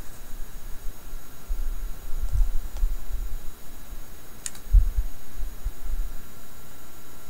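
Faint clicks as a mouse moves among empty plastic yogurt cups, with one sharper click about four and a half seconds in. Underneath is a low, uneven rumble and a faint steady electrical hum.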